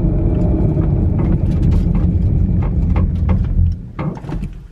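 2020 Shelby GT500 coasting with its engine switched off: low tyre and road rumble inside the cabin, with a few short creaks as it slows. The rumble falls away sharply near the end as the car comes to a stop. The creaks, which come on slowing down and on acceleration, are of unknown cause.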